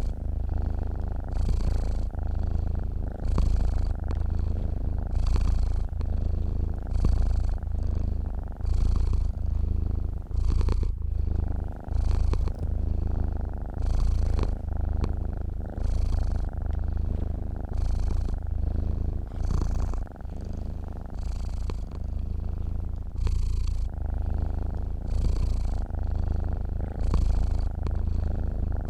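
Domestic cat purring steadily in its sleep, close up, a deep rumble that swells and eases with each breath, about once every two seconds.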